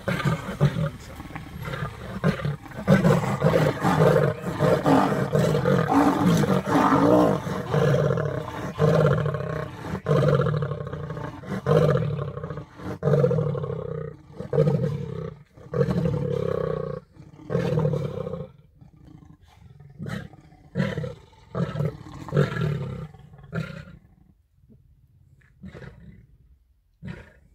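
Lions fighting over an impala kill: a long run of loud, repeated snarls and growls, about one a second, fading to a few quieter ones near the end.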